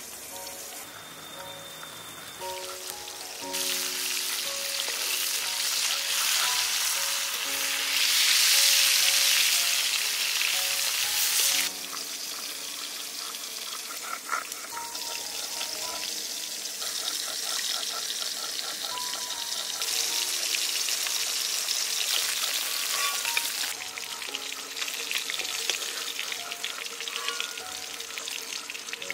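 Parshe fish frying in hot oil in a wok: a steady sizzling hiss, loudest in the first half, that drops off sharply about halfway through and swells again later. Light background music plays over it.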